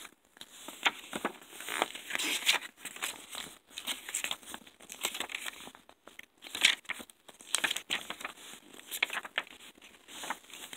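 Pages of a paper CD booklet being turned and handled, giving irregular paper rustling and crinkling with short scrapes.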